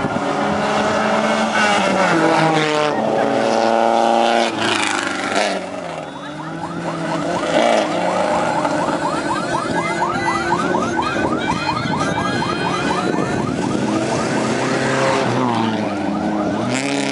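Rally cars on a dirt race course, engines revving hard and passing one after another, the pitch climbing and dropping with gear changes.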